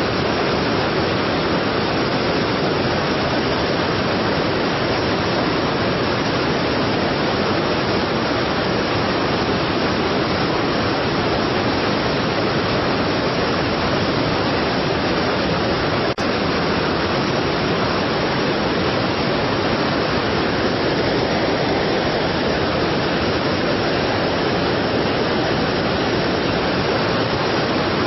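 Strong waterfall: a steady, dense rush of falling water. A short click with a momentary dip in level comes a little past halfway.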